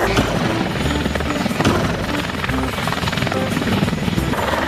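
Helicopter rotor sound, a steady rapid chop, with faint music underneath.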